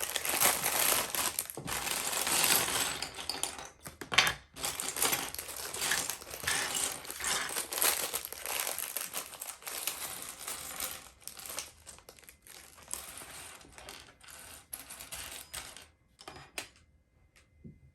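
Small plastic LEGO pieces clattering and a plastic parts bag crinkling as the bricks are handled. The sound is busy with many small clicks for about twelve seconds, then thins to a few scattered clicks near the end.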